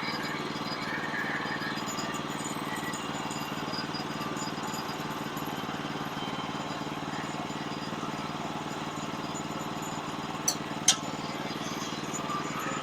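Portable band sawmill's engine running steadily, with two sharp clicks about two seconds before the end.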